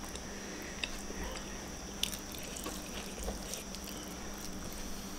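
Quiet eating sounds: a few short, faint wet clicks and smacks as sambal-coated fish is picked up by hand and eaten, over a faint steady hum.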